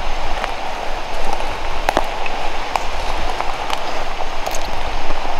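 Steady rustling and crackling of dry leaves and brush as someone moves through woodland undergrowth, with scattered sharp twig snaps and clicks.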